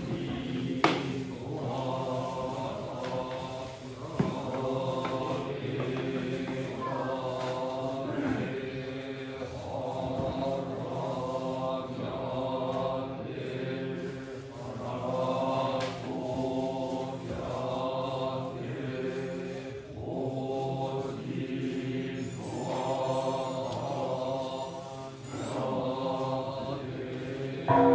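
Buddhist monks chanting a sutra together in unison, in phrases of about two seconds each over a steady low drone of voices. Two sharp clicks sound about one second and about four seconds in.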